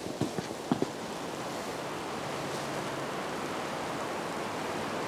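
A few footsteps crunching in snow in the first second, then a steady, even rushing noise with no distinct events.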